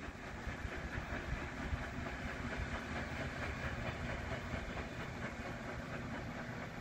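A sternwheeler's paddlewheel turning and churning the river, a steady splashing rush of water with an uneven low thrashing.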